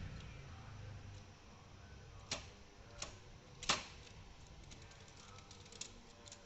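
Brother De Luxe 750TR manual typewriter being worked: three sharp mechanical clacks about two-thirds of a second apart, the third the loudest, followed by fainter light clicks of the mechanism.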